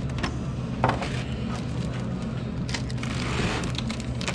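Small clear plastic bag of O-rings crinkling and rustling in the hands, with a sharp click about a second in and a louder rustle around three seconds in, over a steady low hum.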